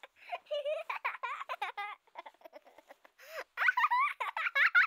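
A small child's high voice giggling and babbling in short, quick bits.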